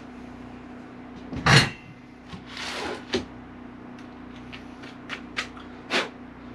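Handling noise as the round wooden wall cut-out is set down and a cordless jigsaw is picked up. One loud knock about a second and a half in, a short scrape, a run of small plastic clicks, and another knock near the end, over a faint steady hum. The jigsaw is not running.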